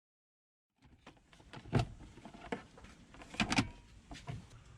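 Plastic trim panel over the relay and fuse panel being pulled off, with sharp knocks and clicks of its clips and the plastic starting about a second in, the loudest one near the middle and two more close together soon after.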